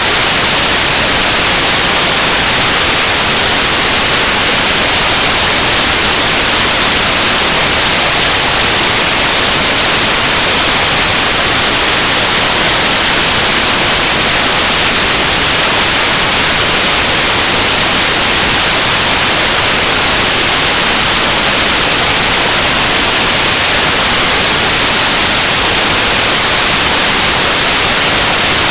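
Loud, steady static hiss with no change and no voice or music heard through it.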